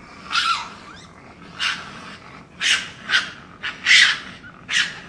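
Raccoon calling: a run of about six short, rasping, hiss-like cries over a faint steady hiss, the loudest about four seconds in.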